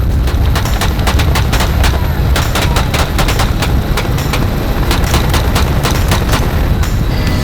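AR-15 rifle gunfire: rapid, irregular shots, thickest in the middle stretch, heard over the steady heavy low rumble of a helicopter in flight.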